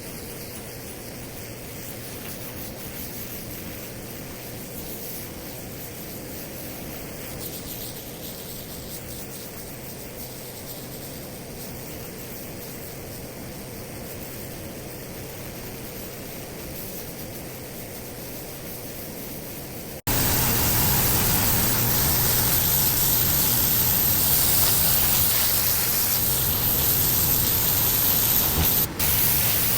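Pressure washer blasting a concrete driveway: a steady hiss of the water jet over the running engine. It jumps suddenly much louder about two-thirds of the way through and keeps going, with a brief dropout near the end.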